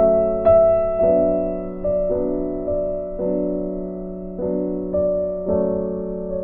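Slow, gentle piano music: chords and single notes struck about once a second, each left to ring and fade.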